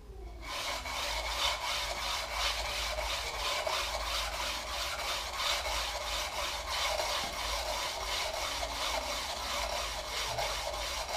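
A flat sharpening stone rubbed rapidly back and forth along a short-track speed skate blade clamped in a sharpening jig. It makes a steady rasp of fast, evenly spaced strokes, starting about half a second in. This is the grinding stage on the coarser stone, before the polishing stone.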